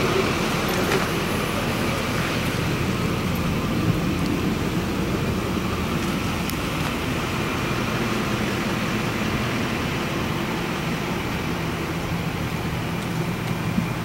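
Steady traffic noise of road vehicles, an even rumble with a faint low hum and no distinct events.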